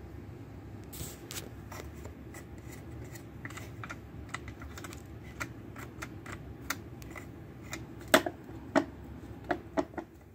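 Audiovox car 8-track tape player's program button clicking as it is pressed over and over, an irregular run of sharp clicks with the loudest few near the end, over a steady low hum.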